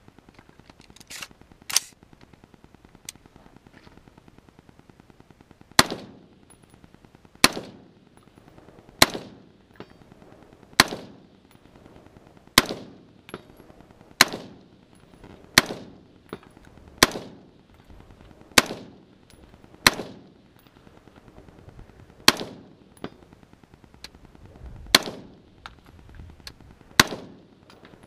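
Smith & Wesson M&P15 AR-15 rifle firing .223 rounds in slow semi-automatic fire, about a dozen sharp shots roughly a second and a half apart, each followed by a short echo. The shots start a few seconds in.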